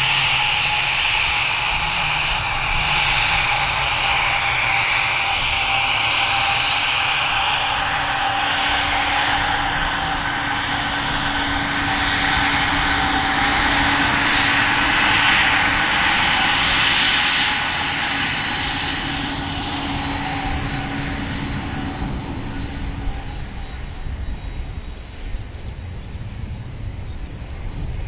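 Cessna 560 Citation V's twin Pratt & Whitney Canada JT15D turbofans whining steadily at taxi power as the jet passes. The sound is a high whine with several steady tones over a jet hiss. It stays loud for the first two-thirds, then fades as the jet moves away onto the runway.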